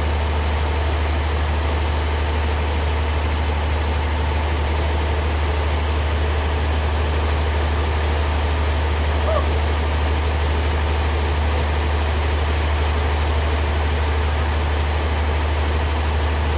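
Bandsaw sawmill running steadily: a constant low drone from the machine with an even noise spread above it.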